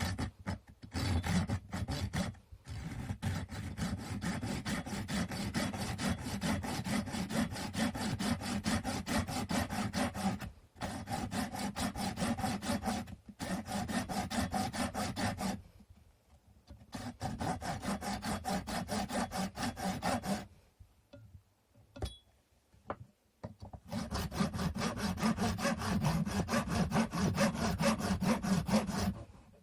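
Japanese-style hand saw cutting through a small wooden stick with quick, even back-and-forth strokes, in several runs with short pauses between them.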